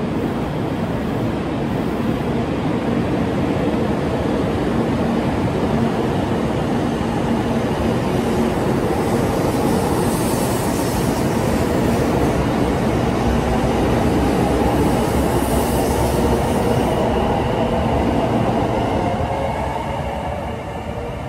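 Kyushu Shinkansen 800 series train pulling out along the platform: a steady, loud running noise with a low motor hum and two brief hissing swells as the cars pass, fading near the end as the train draws away.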